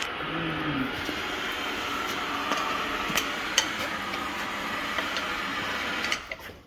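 Steady mechanical whirring hiss from workshop machinery, with a few light metallic clicks, stopping about six seconds in.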